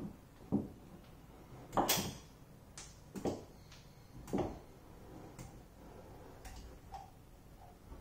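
Caulking gun clicking and knocking in short, separate strokes, about eight at uneven intervals, the loudest about two seconds in, while caulk is run along the gap between a butcher block countertop and the wall.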